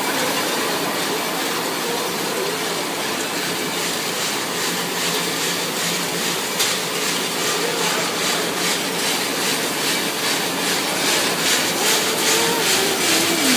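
Machinery of a cough-drop and hard-candy production line running: a steady mechanical din, with a fast, even clatter coming through in the second half.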